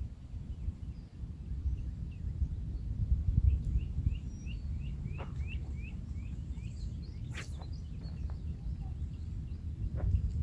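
Wind rumbling on the microphone, with a bird repeating a short high chirp about three times a second for a few seconds in the middle. Two short sharp noises cut through near the middle.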